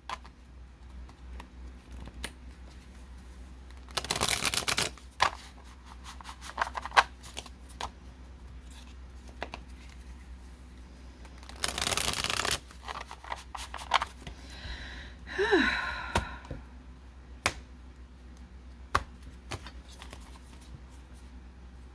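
A deck of tarot cards being shuffled in two short bursts several seconds apart, with scattered light taps and clicks of the cards being handled in between.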